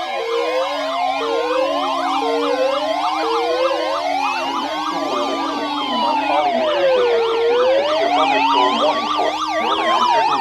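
Several electronic sirens sounding at once. Slow rising-and-falling sweeps overlap with fast up-and-down warbles, and a steady high tone holds for the first few seconds.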